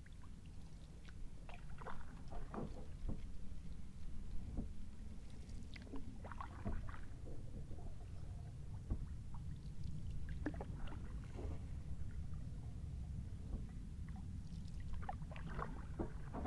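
Kayak paddle strokes in calm river water: gentle splashes and drips in clusters about every four to five seconds, over a steady low rumble.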